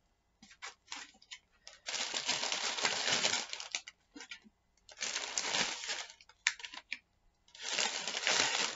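Clear plastic bags crinkling in three bursts as plastic ink bottles are slid out of them, with small clicks of the bottles being set down on a table.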